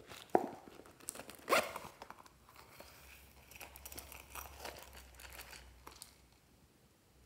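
Hands crinkling and tearing at crinkly plastic packaging: two sharp crackles in the first two seconds, then a few seconds of fine rustling and crinkling that dies away near the end.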